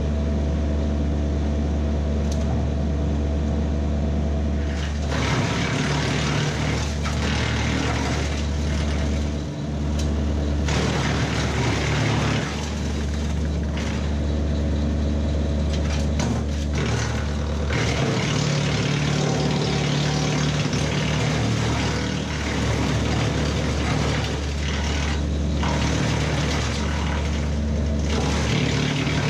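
BECO wood chipper driven off a Kubota B2601 compact tractor, running with a steady hum, then chewing through fed-in cherry branches in repeated spells of loud chipping noise from about five seconds in.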